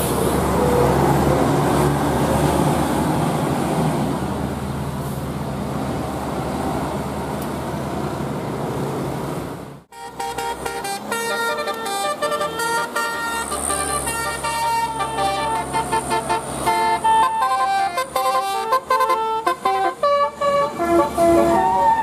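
A coach bus passes close, engine and tyres rumbling steadily. After a cut about ten seconds in, a bus's telolet horn plays a fast melody of short notes, stepping quickly between many pitches.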